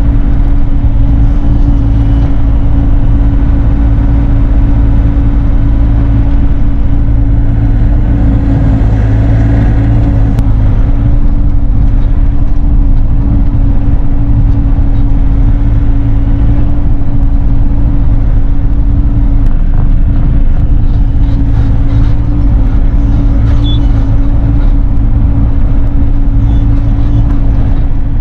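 Bobcat E42 mini excavator's diesel engine running steadily under work, heard from inside the cab as a loud, constant hum with a steady tone over it.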